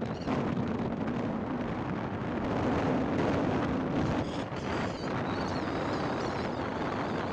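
Steady vehicle engine and road noise from travelling along a highway, with wind buffeting the microphone.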